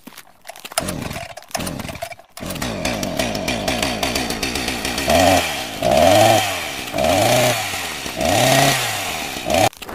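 Chainsaw engine running, then revved four times in the second half, each rev rising and falling in pitch.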